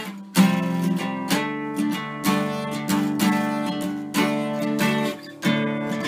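Luna Celtic Horse acoustic guitar strumming chords in an instrumental, about one strum a second, each chord left to ring. There are short breaks in the strumming just after the start and about a second before the end.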